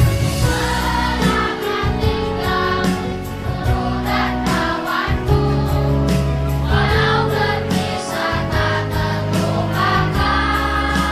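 Children's choir of sixth-grade pupils singing together over instrumental accompaniment.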